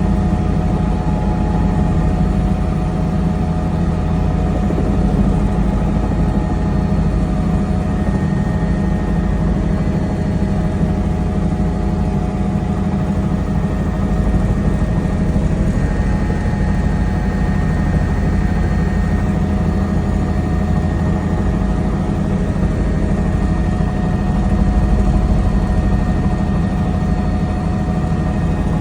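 Helicopter's engine and rotor running steadily, heard from on board: an unbroken low drone with a few steady higher tones over it.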